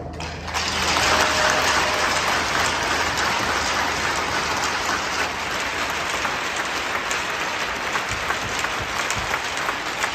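Crowd applauding in a hockey arena. The clapping starts about half a second in, is loudest for the first couple of seconds, and then carries on steadily.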